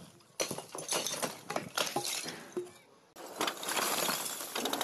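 Broken brick and concrete rubble from an old roof slab clattering and rattling down, with small clinks of fragments, then a denser rush of debris pouring down from about three seconds in.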